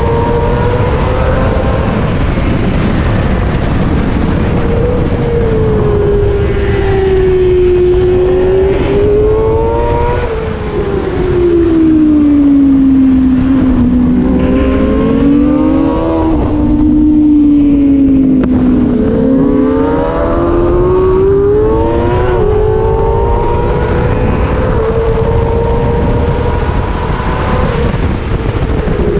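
Kawasaki ZX-6R inline-four race bike engine at racing revs, its pitch climbing and falling again and again as it accelerates down straights and slows into corners. It is loud throughout, over a steady rushing noise.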